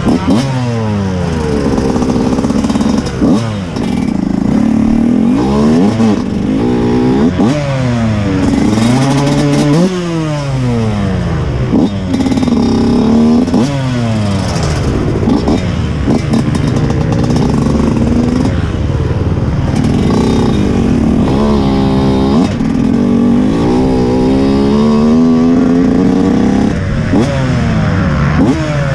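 TM 125 MX two-stroke motocross engine being ridden at low speed, revved up and let off again and again, its pitch rising and falling every second or two.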